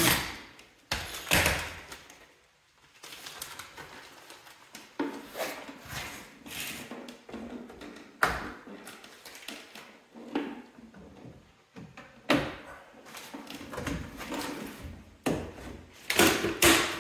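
Irregular knocks, clicks and scraping of hand work on a side-by-side's fender flares, parts and tools being handled and fitted, with a few sharper knocks near the start and a cluster near the end.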